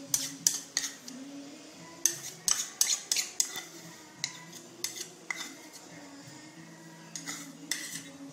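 A spoon tapping and scraping against small ceramic bowls and a china plate: a dozen or so sharp clinks at irregular intervals as mustard paste is scooped out and knocked onto raw marinating chicken.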